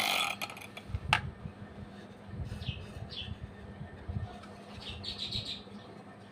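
Bird chirping faintly: a couple of short chirps about two and a half seconds in and a quick run of them about five seconds in, with a single sharp click about a second in.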